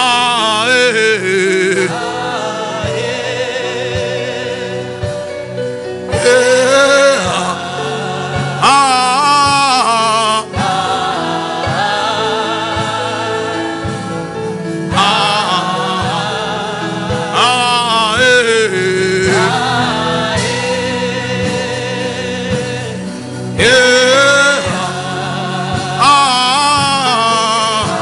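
Gospel music with singing: sung phrases over a sustained accompaniment, a new phrase entering every few seconds.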